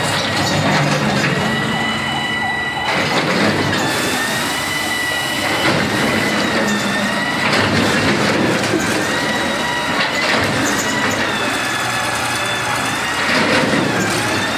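Kobelco hydraulic excavator demolishing a concrete building: its engine and hydraulics run under load with a high whine that wavers slightly in pitch, over repeated crashing and crumbling of broken concrete and masonry.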